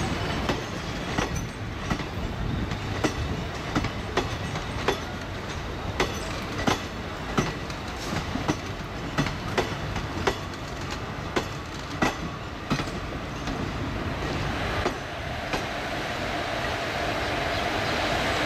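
Wheels of passenger coaches clacking over rail joints as a departing train passes close by, the clacks coming about once or twice a second over a steady rumble and thinning out as the last coach goes by. A steady hiss rises near the end.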